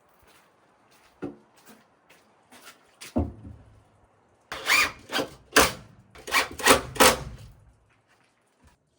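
Wooden parts being handled and knocked together: scattered light knocks, then a cluster of about six loud, sharp knocks in the middle over a low rumble, fading out near the end.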